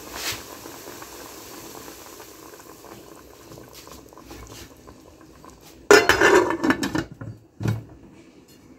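Yogurt-and-water marinade boiling gently in a metal cooking pot (degchi) with the flame turned low. About six seconds in, a metal lid clatters onto the pot for about a second, followed by a shorter knock.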